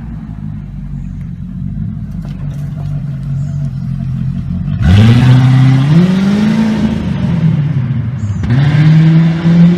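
Car engine running at a steady idle, then about five seconds in it is revved up in steps, eases back and is revved again near the end.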